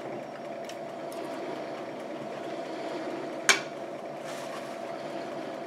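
A metal fork clinks once against a ceramic plate as it is set down, a sharp click about three and a half seconds in, over a steady low background hum.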